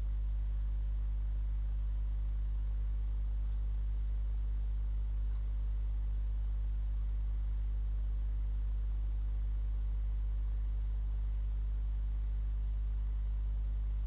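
Steady low electrical hum with a faint hiss.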